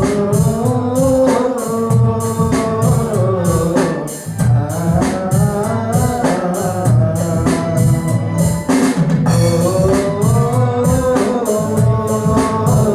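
Song music with a steady drum beat under a long, sliding melody line of held, wavering notes.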